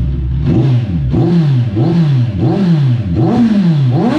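Kawasaki Ninja 1000's inline-four engine through an aftermarket SC Project titanium exhaust, revved in quick throttle blips that rise sharply and fall back about one and a half times a second. Near the end it is revved up hard and held high.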